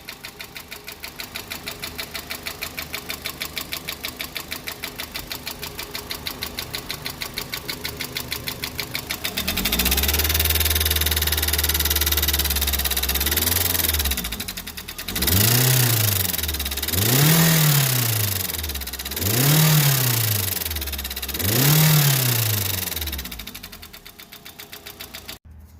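Car engine idling with a rapid, even knocking tick: an abnormal engine noise. About ten seconds in it is revved and held for a few seconds, then blipped four times, rising and falling each time, before dropping back to idle.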